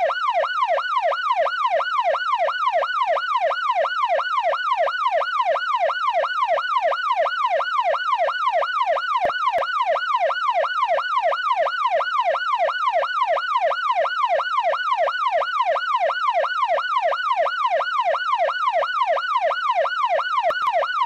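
Police siren in a fast yelp, its pitch sweeping up and down about two and a half times a second in an even, unchanging cycle.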